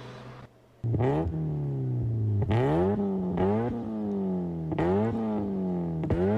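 Modified car engine revved repeatedly in quick throttle blips, the pitch shooting up and sagging back about six times, with sharp exhaust pops and cracks at several of the blips. It starts about a second in.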